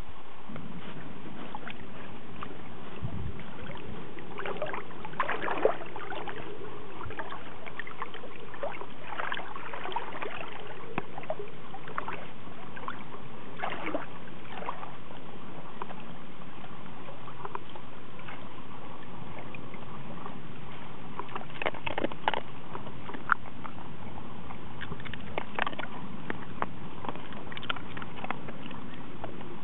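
Water sloshing and splashing around a Pembroke Welsh corgi as it dog-paddles, with irregular small splashes over a steady wash of moving water.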